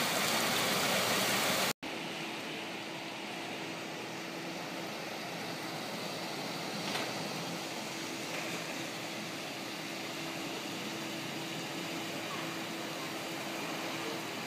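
Heavy rain pouring down as a steady hiss. After a sudden cut about two seconds in, the rain goes on quieter, with a faint steady hum beneath it.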